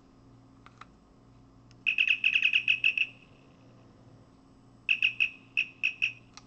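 Star Trek communicator prop replica sounding its double chirp as the grille is flipped open: a rapid run of about ten high electronic chirps lasting about a second, then a second, shorter run of chirps about three seconds later.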